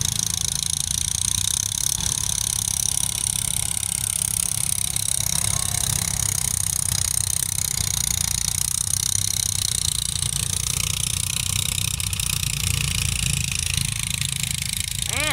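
An engine running steadily, with a constant low rumble and a high hiss that do not change.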